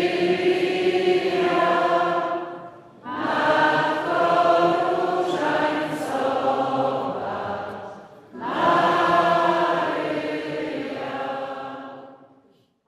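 Choir singing a slow hymn in three long phrases, several voices together, with short breaks between them; the last phrase fades away near the end.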